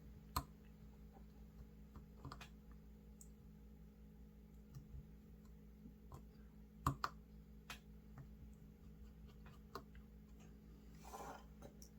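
Faint, scattered clicks and taps of a precision screwdriver and small screws on an iPhone XR's internal metal parts during screw removal, the loudest two coming close together about seven seconds in, over a steady low hum.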